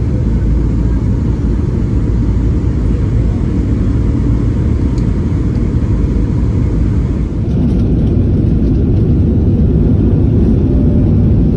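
Jet airliner cabin noise on the descent: a steady, loud rumble of engines and airflow heard from inside the cabin, growing a little louder about seven seconds in.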